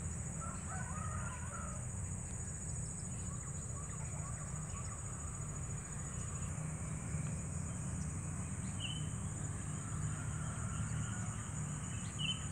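Outdoor ambience of a rice field: a steady high insect drone with a low steady rumble beneath it. Birds call over it: a short cluster of calls about a second in, and brief chirps twice later on, the last near the end.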